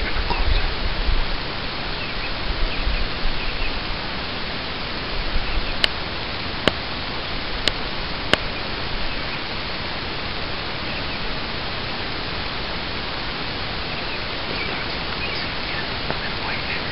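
Steady loud hiss of outdoor background noise on a low-quality camera microphone, with low rumbles in the first few seconds and a few sharp clicks around the middle.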